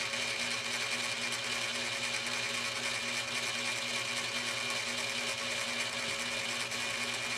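Cowells 90 ME lathe running steadily with no load in back gear, its electric motor humming under a little bit of noisy whine from ten steel gears meshing in the back gear and auto-traverse gear train.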